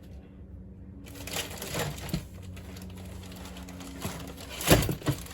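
Packaged diecast cars being handled: plastic packaging rustles and several sharp clacks, the loudest a little before the end.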